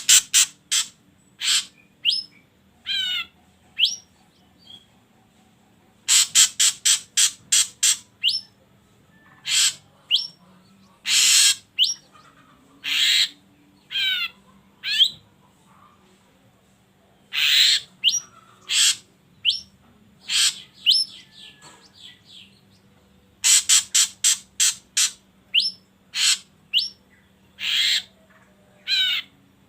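Drongo calling: rapid volleys of harsh, scratchy notes alternating with clear downslurred whistles and short upswept notes, repeated in phrases with brief pauses, played as a lure call.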